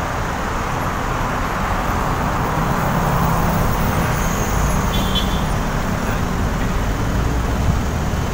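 Steady road traffic noise from passing cars, with a vehicle engine's low hum growing stronger a couple of seconds in.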